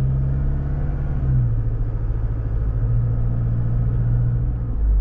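Turbo-diesel engine of a Mazda BT-50 ute heard from inside the cab, pulling steadily as the automatic accelerates in Drive. Its low steady note steps down slightly about a second and a half in and falls away near the end.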